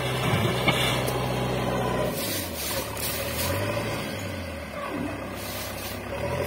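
Diesel engine of a backhoe loader working as it drives forward and lifts and tips its loaded front bucket. It runs at a steady pitch, then its note drops and wavers from about two seconds in as the load on the engine changes.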